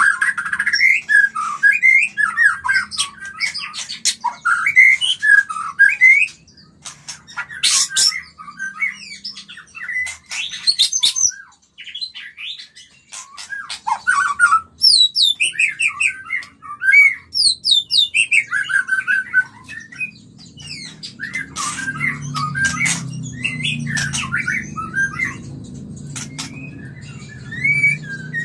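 White-rumped shama singing its breeding-season song: fast runs of varied whistles, chirps and harsh squawking notes, broken by short pauses.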